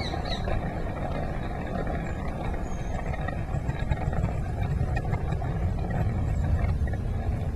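Garden-railway model train running along the track, a steady low engine-like rumble with no distinct beat.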